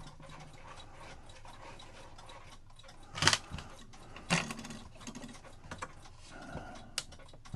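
Clock ticking steadily, with two louder knocks from clock parts being handled a little past the middle and a sharp click near the end.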